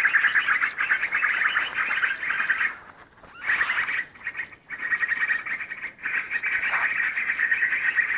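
Bird calls in a rapid, continuous chatter that breaks off briefly a few times.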